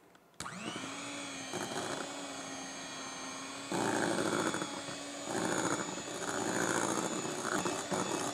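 Electric hand mixer switched on at low speed about half a second in, its motor whirring up and then running steadily. From about halfway its beaters churn through cream cheese and powdered sugar, and a louder, rougher churning noise comes and goes over the motor.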